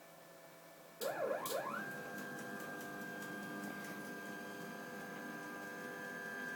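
Stepper motors of a Rostock delta 3D printer driving its carriages on G-code: about a second in, a whine starts, glides up in pitch and then holds a steady high tone.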